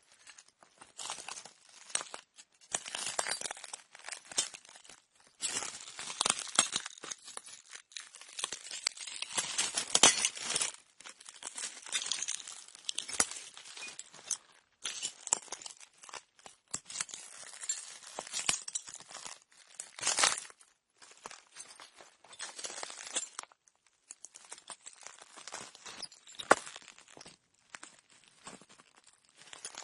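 Slow footsteps crunching over broken glass: each step a cluster of crackling shards underfoot, with short gaps between steps.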